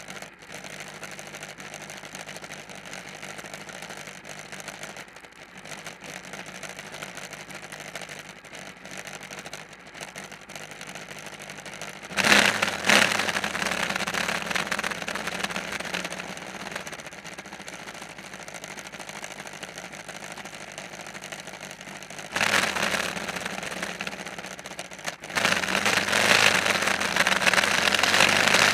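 An engine running steadily, revving up sharply twice and winding back down each time, then held at higher revs near the end.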